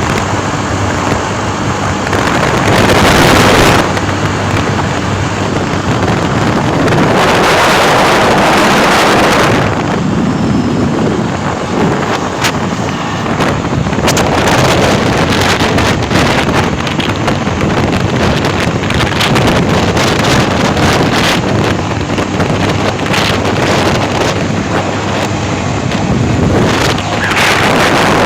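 Strong wind buffeting the microphone over the steady hum of a Spark SP200R-28 motorcycle's engine. The wind swells in loud gusts a few seconds in, again around eight seconds, and at the end.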